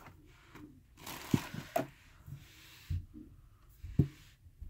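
Quiet handling noises: a brief rustle of clear plastic packaging about a second in, and a few soft knocks as a vinyl figure is picked up and stood on a shelf, the last one near the end.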